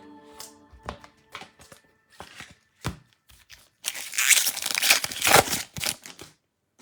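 Trading card pack being torn open by hand: a few light clicks and handling noises, then about two seconds of loud, crinkly tearing of the wrapper.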